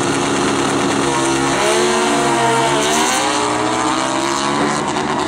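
Two drag-racing motorcycles launching off the line and accelerating down the strip. Their engines rev hard, and the pitch climbs and drops through gear changes about two seconds in.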